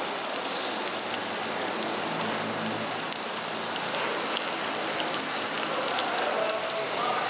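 Meat sizzling on a grill pan: a steady hiss with scattered pops and spits of fat.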